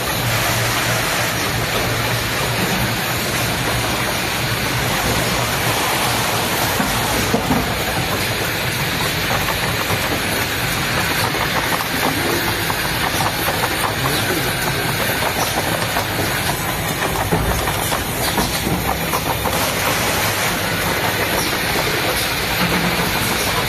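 Production and packaging machinery on a cough lozenge line running: a steady mechanical din with a low hum and a dense run of fast, irregular clicks.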